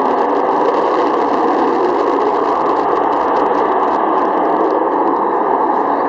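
Avro Vulcan's four Rolls-Royce Olympus jet engines running in a steady, even rush of jet noise with no let-up.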